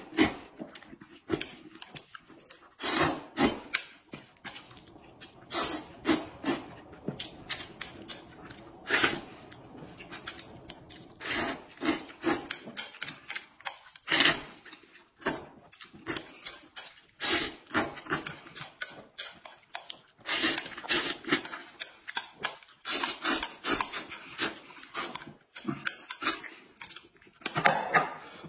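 Two people slurping and chewing noodles, in quick irregular bursts and clusters of loud slurps.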